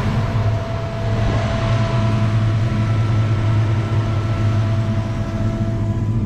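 Turbocharged Ford 302 small-block V8 idling steadily, close up in the engine bay, with a thin steady whine over the low engine note.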